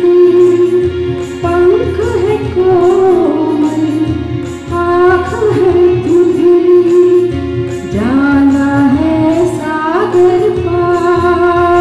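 A Hindi prayer being sung over instrumental accompaniment with a steady beat, led by a woman's voice.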